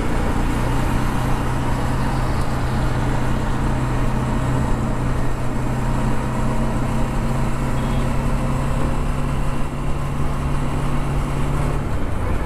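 Bajaj Dominar 400's single-cylinder engine running at a steady highway cruise, its drone holding one pitch, with wind rushing over the bike-mounted microphone. Near the end the engine note eases off.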